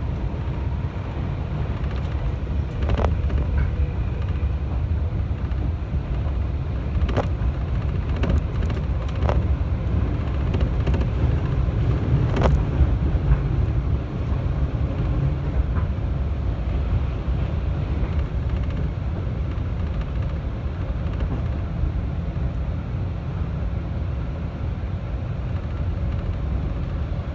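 Cabin running noise of a 211 series electric train on the move: a steady low rumble of wheels on rail, with a few sharp clicks scattered through it.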